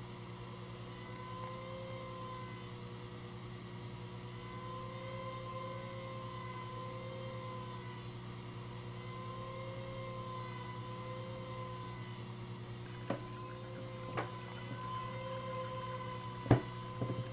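Uniden Grant LT CB radio giving off a steady whine of a few tones that waver slowly up and down in pitch over a low hum: an unexplained noise heard with the volume turned down or the squelch on, although the radio transmits and receives well. A few sharp clicks near the end.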